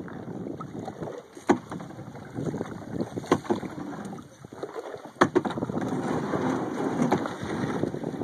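Canoe paddling: a paddle knocks sharply against the canoe roughly every two seconds, with water splashing and a steady low rush between the strokes.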